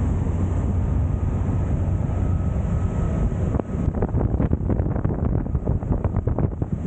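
MerCruiser 6.2 V8 sterndrive of a running powerboat, a steady low rumble under way, with wind rushing over the microphone and the wake churning; about four seconds in, the wind starts buffeting the microphone in rapid gusts.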